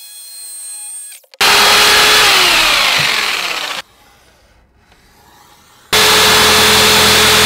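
Electric jigsaw cutting thin 5 mm plywood. About a second and a half in it runs loud, its pitch sagging as the blade loads up, and stops. After a short pause it starts again and runs at a steady speed.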